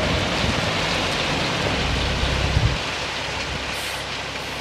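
A load of gravel pours and rattles out of a raised dump truck bed in a dense, steady rush, over the low running of the truck's engine. The engine hum drops back a little over halfway through.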